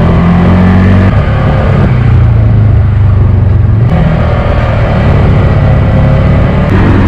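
Polaris RZR side-by-side's engine running as it drives along a dirt track, its note shifting about a second in and again about four seconds in.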